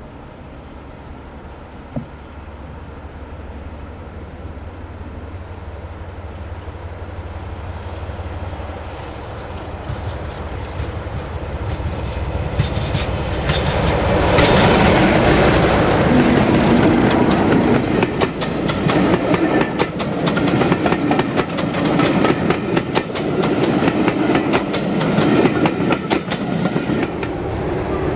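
Diesel-hauled passenger train approaching and passing close by. The locomotives' engine drone grows steadily louder and is loudest as they go past about halfway through. After that comes a fast clickety-clack of the carriage wheels as the coaches roll by.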